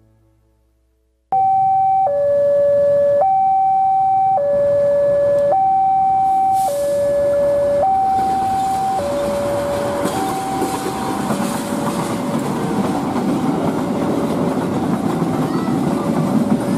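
Level-crossing warning alarm sounding a steady two-tone signal, a higher and a lower tone swapping about once a second, from about a second in. From the middle on, the running noise of a freight train of oil tank wagons grows beneath it as the train approaches and passes.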